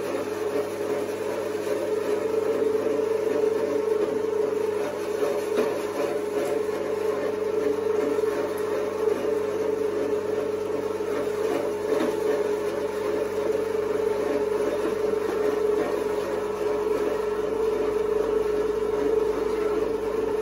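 Alveored electric meat grinder running steadily with a constant hum while it grinds chunks of meat into mince.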